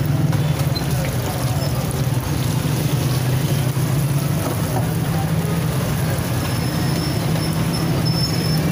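Steady street noise with a strong low hum, like engines and traffic, running evenly throughout, with a few faint high tones in the second half.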